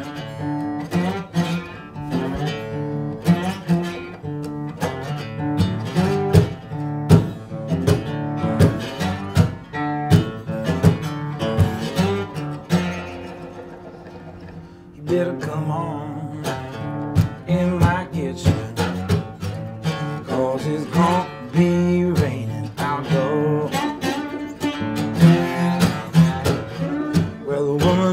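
Fingerpicked acoustic guitar played with a glass slide, slide blues with a steady picked bass under the melody notes. About halfway through, one note is left ringing and fades for a couple of seconds before the playing starts again.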